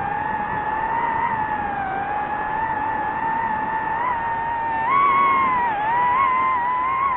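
Quadcopter drone's motors and propellers whining steadily. The pitch wavers, then jumps up about five seconds in as the throttle is raised, and eases back toward the end.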